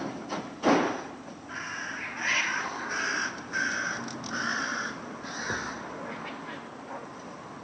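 Crow cawing, a string of about six caws starting about a second and a half in, preceded by a short loud sudden noise just under a second in.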